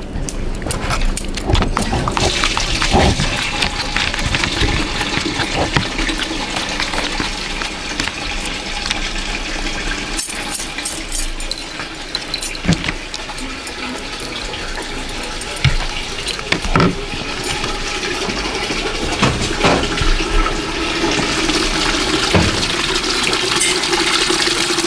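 Liquid running steadily into a container, like a tap filling a bucket, with a few scattered knocks.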